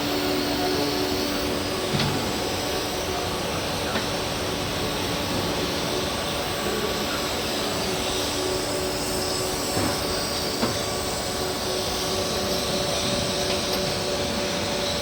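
Morara grinding machine running: a steady machine hum of several constant tones over a hiss, with a few short clicks.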